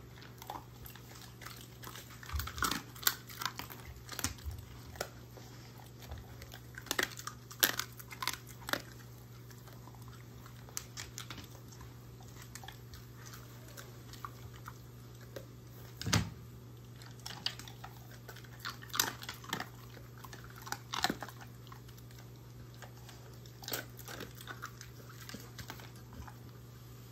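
A German shorthaired pointer chewing and crunching dog treats, with sharp crunches and bites coming in irregular clusters and pauses between them. A steady low hum runs underneath.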